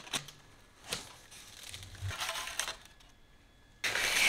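Cardboard shipping box being opened by hand: packing tape and cardboard flaps scraping and rustling, faint at first and much louder near the end.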